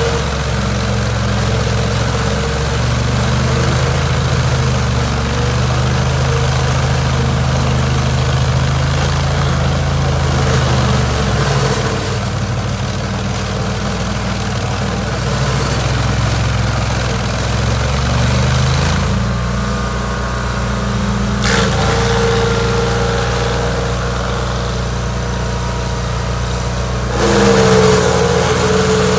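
An engine running steadily at a low, even speed, with a separate whining tone that rises and gets louder briefly near the end.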